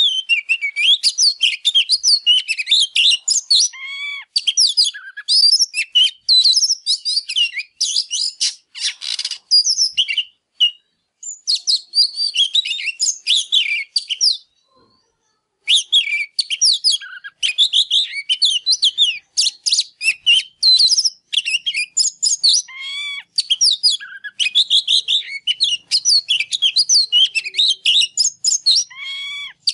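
Oriental magpie-robin singing a fast, varied song of rich whistles, trills and chirps, delivered in quick phrases with a pause of about a second near the middle. It is a caged bird in full, high-energy song.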